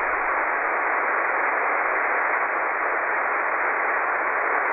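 Steady, loud rushing static from a CB radio receiver's speaker, with no intelligible voice in it: the channel has been handed over and no readable reply comes through.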